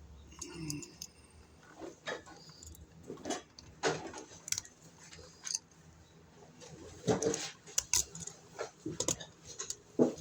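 Irregular clicks, taps and scrapes as the wires are folded back into a metal electrical box and the new wall receptacle is pushed into place.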